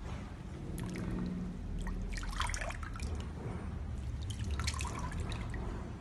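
Waste water from a garbage disposer's corrugated drain hose trickling and splashing into a basin of food-waste slurry, with bursts of splashing a couple of seconds in and again near the end, over a steady low hum.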